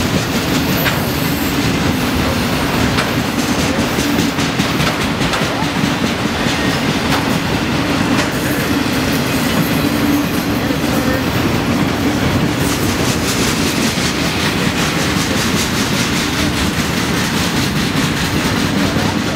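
Union Pacific autorack freight cars rolling past at speed: a steady, loud rumble of steel wheels on the rails, with a clickety-clack of wheels over the rail joints.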